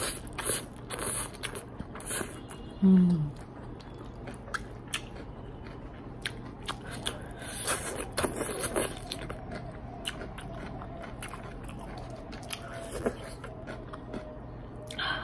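Close-up eating sounds: hakka noodles being slurped in the first second or so, then chewing with many small mouth clicks and smacks. About three seconds in comes a short falling vocal hum, the loudest sound.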